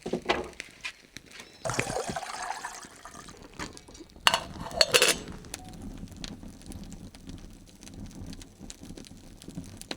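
Water pouring and sloshing, with two sharp clinks about four to five seconds in.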